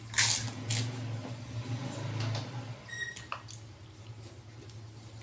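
Close-up mouth sounds of eating rice by hand: two sharp smacks as he sucks food off his fingers, then softer chewing and smacking, over a steady low hum.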